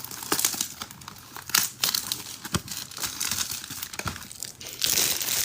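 Crinkling of foil trading-card pack wrappers and rustling cards being handled, with irregular small clicks and snaps. A louder, denser crinkling starts near the end.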